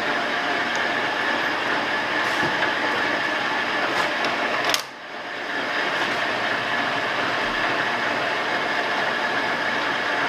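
Metal lathe running with its chuck spinning, a steady mechanical noise with a constant high whine. About five seconds in there is a sharp click, then the sound drops off suddenly and builds back up over about a second.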